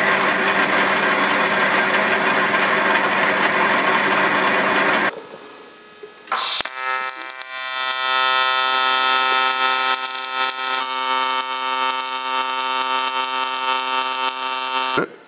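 Metal lathe spinning an aluminium tube on low speed while an abrasive Scotch-Brite pad is held against it to brush the finish: a steady hiss over a motor hum, stopping about five seconds in. About six and a half seconds in, an AC TIG welding arc strikes on the aluminium tube with a steady buzz and hiss, and cuts off just before the end.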